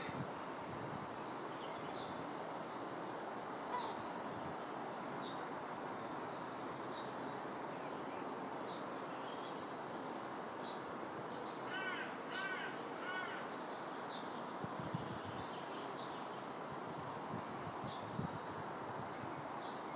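A crow caws three times in quick succession about twelve seconds in. Underneath is a steady rushing outdoor background with short, high chirps from small birds repeating every second or two.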